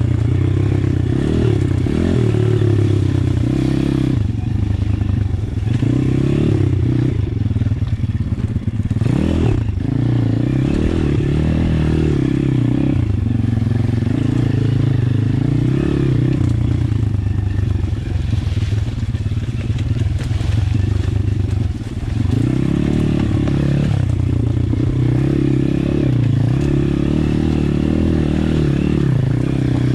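Apollo RFZ pit bike with a swapped-in 150cc single-cylinder four-stroke engine, ridden along a rough trail, its pitch rising and falling as the throttle is opened and closed. The revs drop briefly twice, about a third and two-thirds of the way through, before it picks up again.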